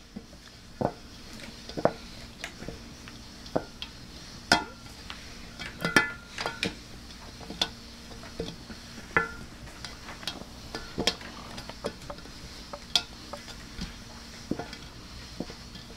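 Stainless steel bowl being spun on carpet with a cat inside, giving irregular knocks and clinks as the cat and the hand bump against the metal, several of them ringing briefly.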